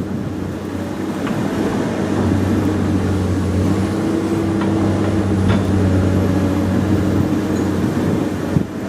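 Komatsu PC200 excavator's diesel engine running steadily, growing louder about two seconds in and easing off near the end, with a few light knocks.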